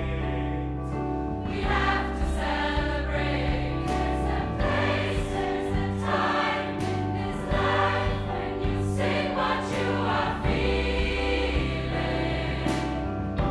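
A large mixed choir singing with a female soloist on a microphone, backed by a live band of piano, bass, electric guitar and drum kit. The bass holds long low notes under the voices while drum and cymbal hits mark the beat.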